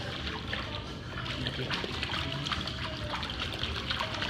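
Pool water splashing and lapping in many small, quick splashes as a West Highland White Terrier paddles through it.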